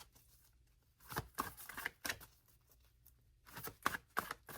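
Tarot cards being handled and shuffled: short papery slaps and rustles in two bouts with a pause between.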